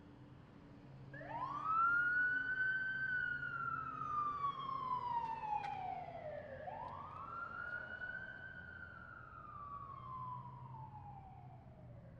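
Emergency vehicle siren in a slow wail: it climbs quickly, then slides slowly down over about five seconds, twice over, with a third rise starting near the end. A low steady hum runs underneath.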